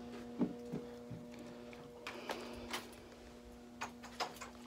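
Quiet room tone with a steady electrical hum and a handful of light clicks and knocks scattered through it.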